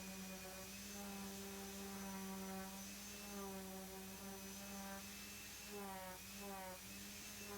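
Faint background music: a steady low drone with soft sustained tones above it that change pitch every second or two, with a couple of falling glides near the end.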